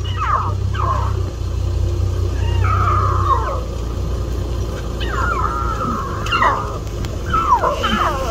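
Lion cubs calling with repeated high mews that slide down in pitch, a few of them drawn out longer, over a steady low rumble.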